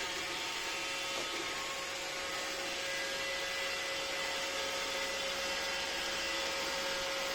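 iRobot Roomba 606 robot vacuum running, a steady, even whir with a thin whine through it. Not much sound, not very disturbing.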